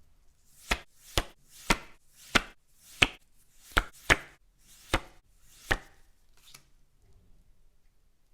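Handling taps from a Pokémon TCG collection box unboxing: about nine sharp taps of things knocked or set down on a hard surface, roughly half a second to a second apart, ending with a fainter one about two thirds of the way through.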